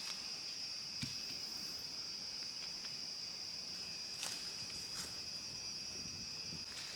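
Steady high-pitched chorus of insects singing, with a few faint clicks and knocks.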